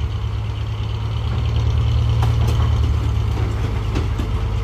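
Large truck engine running steadily at low revs, with a few faint clicks over it.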